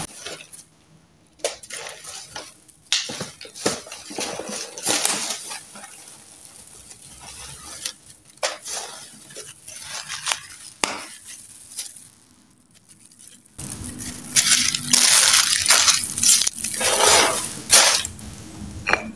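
Hands and a utensil working homemade biscuit-and-tempe fishing bait in a container: scattered knocks and clinks against the container, with crumbly crushing as the tempe goes in. The handling gets busier and more continuous in the last few seconds.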